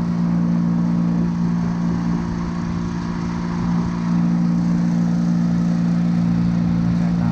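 An engine running steadily at constant speed, its pitch unchanging, dipping slightly in loudness in the middle.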